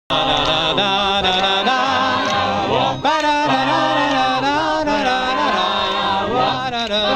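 A group of men and women singing a song together, a man's voice leading, in long held notes over a steady low accompaniment.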